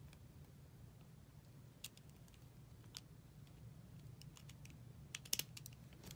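Faint scattered small clicks of a vintage flat petrol lighter's metal parts being handled and fitted together, with a quick cluster of sharper clicks about five seconds in, over a low steady hum.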